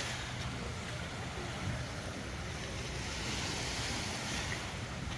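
Small waves washing onto a sandy beach, one wash swelling about three and a half seconds in, with wind on the microphone and a low steady rumble underneath.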